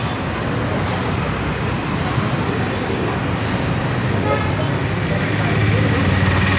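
Steady street traffic noise: vehicle engines rumbling, with a horn sounding in the second half.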